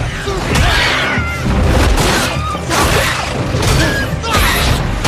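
Film sound effects of a swarm of demobats screeching in short, shrill squeals, with repeated heavy thuds and crashes of blows, over a loud dramatic score.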